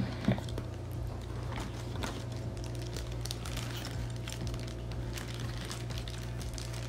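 Clear plastic bag around a handheld radio crinkling in irregular small crackles as it is handled and lifted out of a cardboard box, over a steady low hum.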